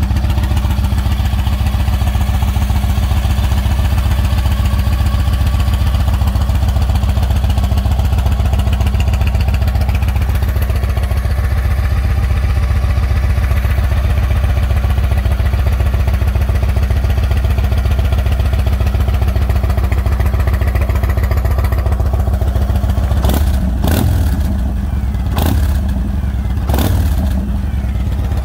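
Yamaha Raider SCL's big air-cooled V-twin running steadily at idle through its chrome exhaust, a loud, even, low rumble. A few sharp knocks come near the end.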